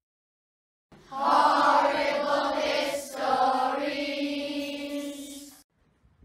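Short sung title sting: voices in chorus holding long notes in two phrases. It starts about a second in and cuts off shortly before the end.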